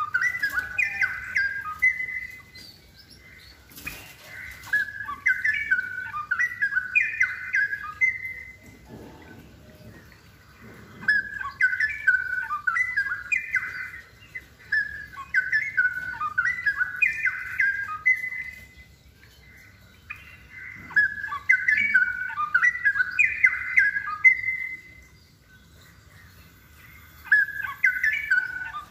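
Straw-headed bulbul (cucak rowo) singing actively, in repeated loud phrases of rapid notes a few seconds long with short pauses between them. A single sharp click sounds about four seconds in.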